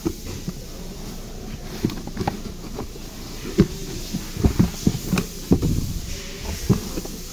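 Cardboard box being handled and pulled open by gloved hands: a run of irregular scrapes, rustles and dull knocks of the flaps and panels, over a faint steady hum.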